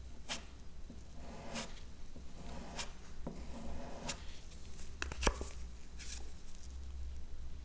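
Small metal putty knife scraping acrylic wood filler across a wooden door surface in several short strokes, roughly one a second. A sharp click a little past five seconds in is the loudest sound.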